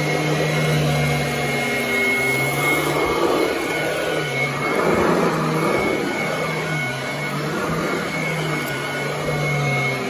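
Royal commercial upright vacuum cleaner running over carpet: a steady motor hum with a thin high whine above it. The sound shifts a little every second or two as the machine is pushed back and forth.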